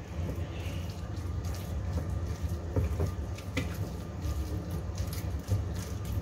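Hands rubbing a dry spice mix into raw bone-in chicken thighs on a plate: soft wet handling of the meat with scattered light clicks, over a steady low hum.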